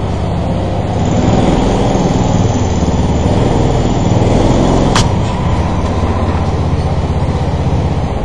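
Several rental go-kart engines running in an echoing kart hall, a little louder for a few seconds, with one sharp clack about five seconds in.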